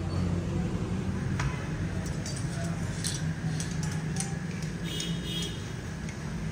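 Steady low hum with light metallic clinks and ticks scattered over it, most between about three and five seconds in.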